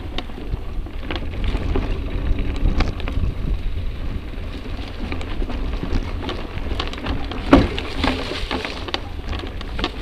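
Mountain bike riding over a rough dirt trail, heard from a camera on a bike: a steady low rumble with rapid clicks and rattles from the tyres, chain and frame, and one sharper knock about three quarters of the way through.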